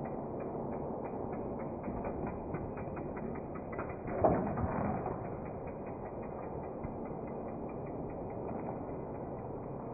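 Rapid, ratchet-like mechanical clicking that goes on steadily, with a louder noisy swell about four seconds in.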